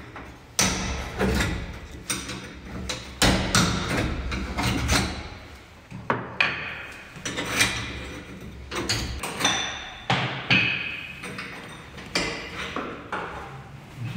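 Hammer and chisel knocking out plaster from around old water pipes in a wall: a string of irregular sharp blows, some with a brief metallic ring.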